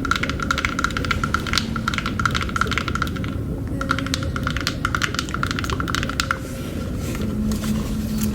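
Rapid, dense tapping and clicking, close to the microphone, over a steady low rumble of layered underwater ambience. The tapping pauses briefly about three and a half seconds in and thins out near the end.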